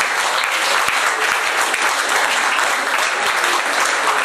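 Audience applauding, a steady even clapping of many hands.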